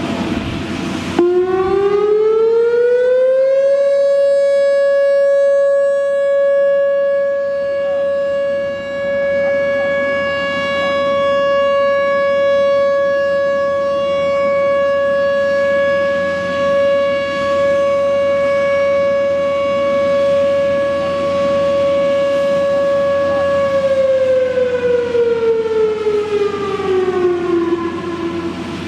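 Whelen WPS-3016 electronic outdoor warning siren sounding a steady alert tone. It starts about a second in and rises in pitch, holds one steady tone for about 20 seconds, then winds down in pitch near the end.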